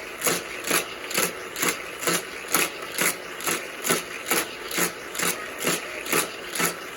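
Motorized booster of a Hot Wheels Criss Cross track running, with a toy car being shot round the track: an even whoosh repeating about twice a second.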